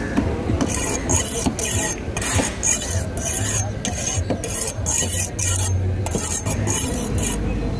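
Rhythmic rasping scrapes, about two strokes a second, over a low hum.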